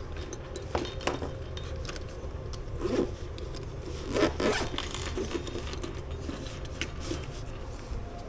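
Irregular rustling and scraping of gear and clothing being handled, with sharper rasps about 3 and 4.5 seconds in, over a low steady hum.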